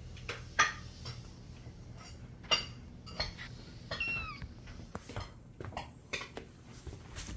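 A house cat gives one short meow about four seconds in, among scattered clicks and clinks like dishes or a bowl being handled, over a low steady hum.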